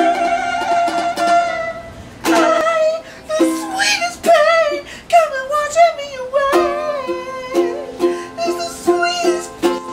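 Ukulele music: plucked strings under a wavering melodic line with vibrato, and in the second half a note plucked over and over about twice a second.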